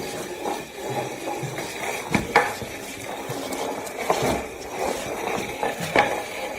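Household clatter: scraping and rustling with a few sharp knocks, twice about two seconds in, then once at about four seconds and once at about six seconds.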